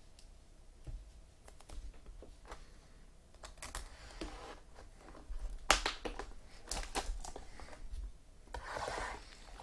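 Trading cards and their packaging being handled on a table: scattered light clicks and taps, with a short crinkling rustle about four seconds in and another near the end. The loudest is a sharp click a little before six seconds.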